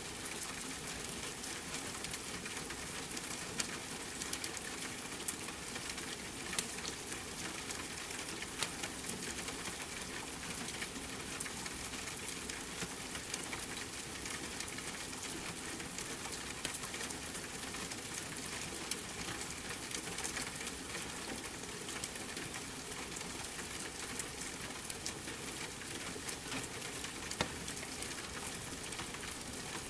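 Steady rain hiss mixed with a fireplace crackling, with frequent small sharp pops and snaps from the burning wood.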